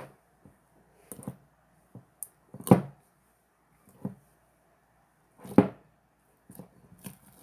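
Slime being squeezed and pressed by hand, making separate wet squishing pops about every one to two seconds. The two loudest come a little before and a little after the middle.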